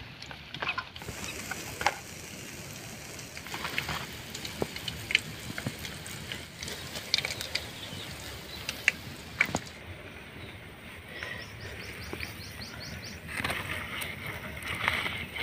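Hot cooking oil in a kadai over a wood fire, crackling and popping as fried fish is lifted out: a low hiss with scattered sharp clicks.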